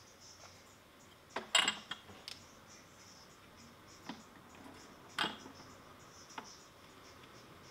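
Glass jars and bottles being set down and shifted on a wooden kitchen cabinet shelf: a quick cluster of clinks and knocks about a second and a half in, the loudest, then single knocks about four, five and six and a half seconds in.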